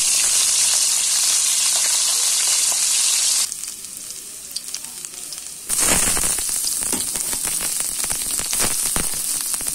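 Hot cooking oil sizzling as chopped garlic and red onions sauté in a wok. A steady sizzle drops quieter a few seconds in, then returns louder at about six seconds, full of rapid crackling pops.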